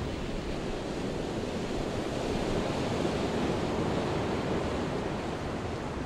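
Ocean surf: a steady wash of breaking waves, swelling a little in the middle and easing slightly toward the end.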